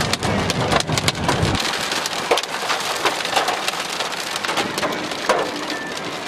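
Wind-driven rain and hail pelting a car's windshield and body: a steady hiss packed with many sharp, separate hits. A low rumble underneath cuts off suddenly about a second and a half in.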